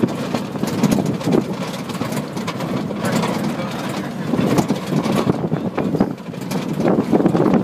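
Open-sided jeep driving over a rough dirt track: vehicle noise with wind buffeting the microphone and frequent jolting knocks from the bumps.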